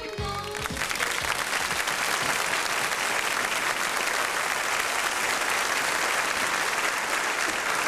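Studio audience applauding, a dense, steady clapping that rises as the disco song's last notes die away about a second in.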